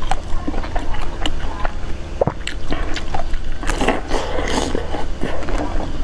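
Close-miked biting and chewing of a green almond-flake-coated dessert ball: sharp crunches and clicks throughout, with a wetter smacking patch about four seconds in.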